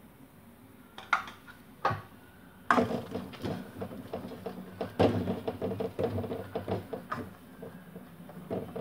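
A silicone spatula stirring thick banana-and-jaggery halwa in a stainless steel pan: two short taps on the pan, then from about three seconds in a run of irregular scraping and knocking against the metal as the paste is worked vigorously.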